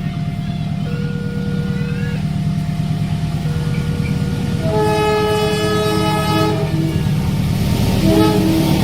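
Diesel locomotive's engine running with a steady low rumble under a level-crossing warning alarm that alternates between two tones. About five seconds in, the locomotive's horn sounds a long chord of nearly two seconds, then gives a short toot near the end.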